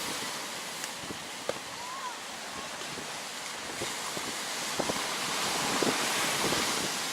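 Sea surf washing on the shore, swelling louder about five seconds in, with a few small knocks.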